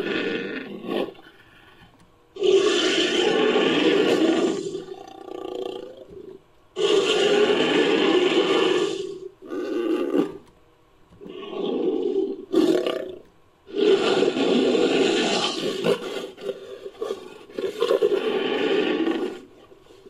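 Made-up creature roars mixed from Homotherium (sabre-toothed cat) and Megalosaurus sound effects: a series of long, loud roars, about four, with shorter, quieter growls between them.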